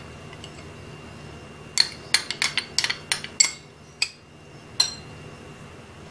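A metal spoon clinking and tapping against glass bowls, about nine sharp clinks in quick succession starting about two seconds in, as mustard paste is scraped out of a small glass bowl into a glass bowl of raw chicken.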